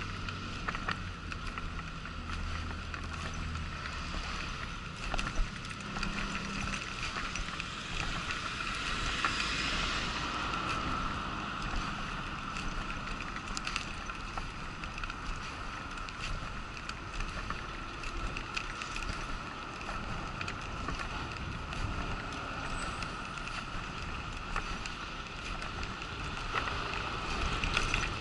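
Wheelchair rolling steadily over a paved promenade, a continuous rolling noise with occasional faint rattles and ticks.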